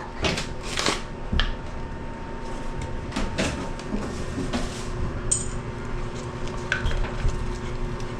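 Scattered clinks and knocks of small hard objects being handled, bunched in the first few seconds, over a steady low hum.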